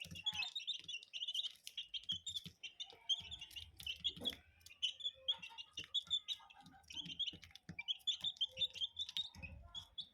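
Chicks peeping continuously in short, high chirps, with scattered sharp clicks among them.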